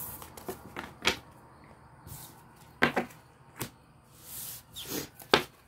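Tarot cards being gathered up off a table by hand: a few sharp clicks and taps of the cards against the tabletop and each other, with brief soft swishes of cards sliding.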